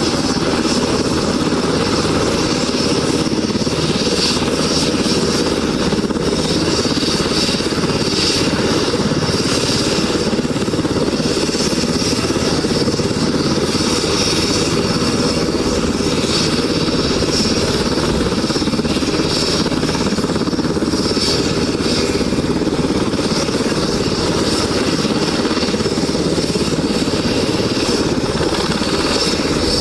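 A loud engine running steadily and without letup.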